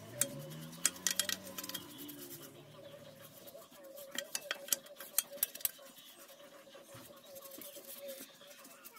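A small stiff brush scrubbing inside an oily metal scooter CVT cover, giving sharp scratchy clicks in two spells, about a second in and again around four to five seconds in. A faint steady tone runs underneath.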